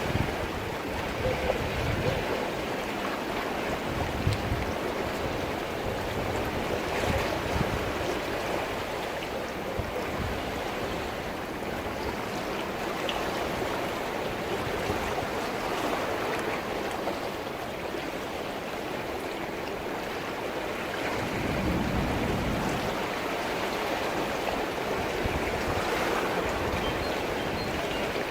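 Ocean waves breaking on the shore: a steady rush of surf with heavier wave surges now and then, most strongly about twenty-one seconds in.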